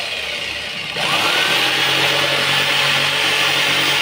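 Corded electric jigsaw cutting through a thin painted panel. Its motor winds up with a rising whine about a second in, then runs steadily as the blade saws.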